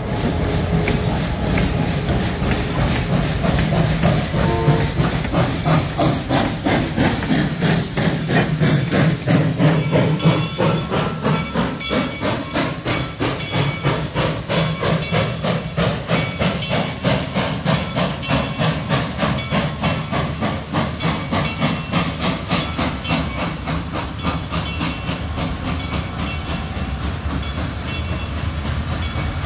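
Reading & Northern 425, a 4-6-2 Pacific steam locomotive, working under load with a steady rhythm of exhaust chuffs. Steam hisses loudly over a low diesel hum for about the first ten seconds, after which the chuffs carry on alone.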